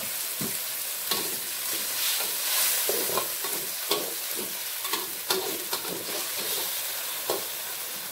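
Green chilli sambal paste sizzling in hot oil in an aluminium wok, with a little water just added. A metal ladle stirs it, scraping and knocking against the pan at irregular moments.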